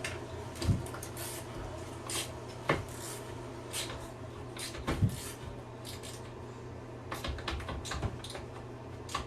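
Wrench working a bolt at a toilet's base, giving scattered metal clicks, knocks and scrapes; the bolt just spins at the base instead of tightening.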